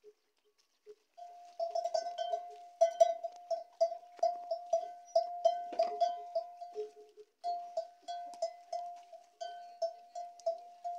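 A bell ringing one steady note in quick, uneven strokes, about three a second, starting just over a second in, with a short break a little after seven seconds.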